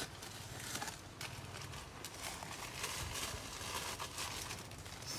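Light rustling of plastic packaging with scattered small clicks and taps, as seasoning packets and containers are handled.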